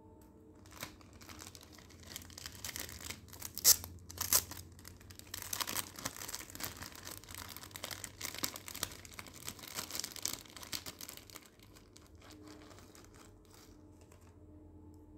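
Clear plastic jewellery pouches crinkling and rustling as they are handled and opened, in irregular crackles with a couple of sharp loud ones about four seconds in; it dies down after about eleven seconds.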